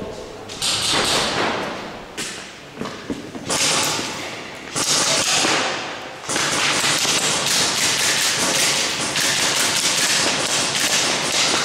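Airsoft guns firing, a rapid, hissy rattle of shots. There are several short bursts, then a long burst of about five seconds near the end.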